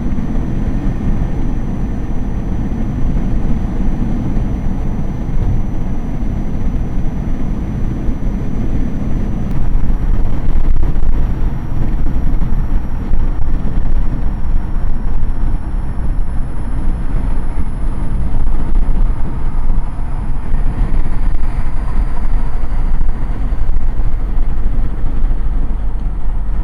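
Steady road and engine noise inside a car cabin cruising at highway speed: a low rumble of tyres and engine that grows a little louder about ten seconds in.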